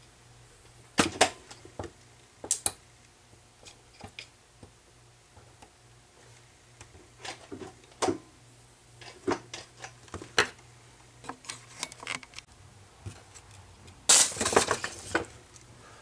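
A homemade capacitive discharge spot welder firing its copper electrodes onto nickel battery tabs gives a string of sharp snaps and clicks. About 14 s in comes a loud crackling burst lasting about a second: the welder's SCR is failing.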